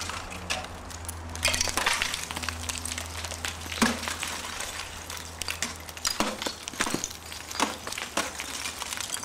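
Ice axes and crampons striking waterfall ice during a climb: irregular, sharp, cracking hits a second or so apart, the loudest about four seconds in.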